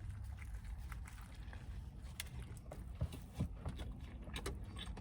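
Close-miked chewing of a bacon burger with onion rings inside: scattered soft mouth clicks and smacks over a low steady hum.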